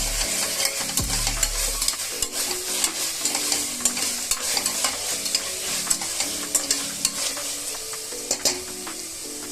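Onion-tomato masala sizzling in hot oil in a pressure cooker as it is stirred with fresh mint and coriander leaves, with frequent sharp clicks of the spoon against the pot.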